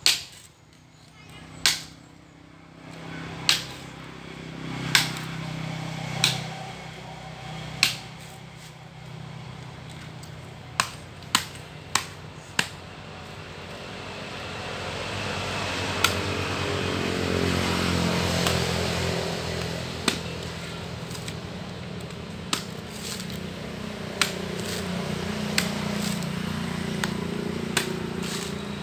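Sharp knocks and cracks from coconut harvesting, as coconuts are cut loose and strike the ground. They come one to two seconds apart at first, with a quick run of four about eleven seconds in, then more sparsely.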